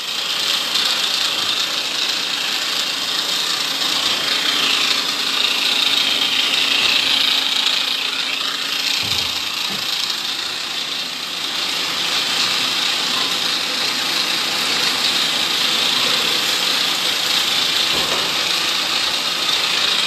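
Heavy rain falling on a corrugated metal roof and wet concrete: a steady, dense hiss, with a faint low hum underneath.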